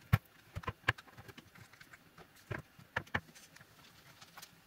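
Irregular clicks and taps of hard plastic parts being handled and fitted into the blower's plastic handle housing during reassembly, loudest near the start.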